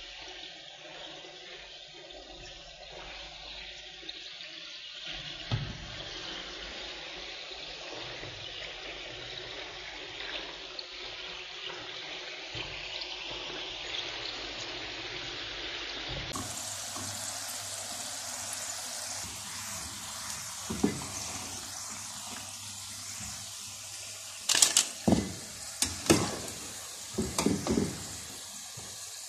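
Potato strips deep-frying in hot oil: a steady sizzle. Near the end, a few sharp knocks break in over it.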